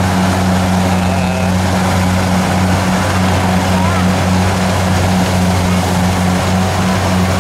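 Kubota DC70 rice combine harvester running steadily, its diesel engine and machinery making a constant low drone.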